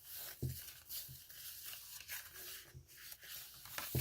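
Pages of a handmade paper junk journal being turned and handled: soft paper rustling with a few light knocks scattered through it.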